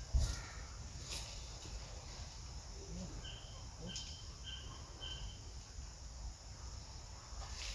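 Outdoor ambience with a steady low rumble. In the middle, four short, high chirps come about half a second apart, from a small bird or insect.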